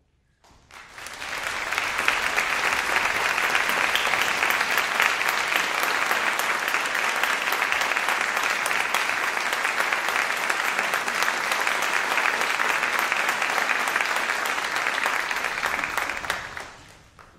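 Audience applauding steadily, swelling in over the first two seconds and dying away near the end.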